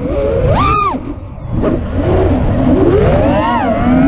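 FPV freestyle quadcopter's brushless motors and propellers whining, the pitch rising and falling with throttle punches. The motors drop low and quiet about a second in, then climb in pitch again near the end.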